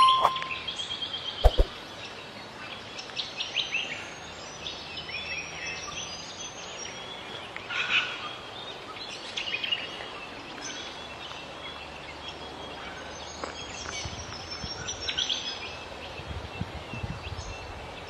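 Small songbirds chirping with short, high calls scattered throughout, over a steady outdoor hiss. A brief electronic ding sounds at the very start and a sharp click about one and a half seconds in.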